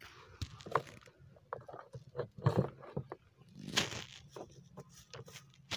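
Scattered plastic clicks and knocks as a battery is worked loose from the plastic battery compartment of a knapsack sprayer, with a louder scrape about four seconds in.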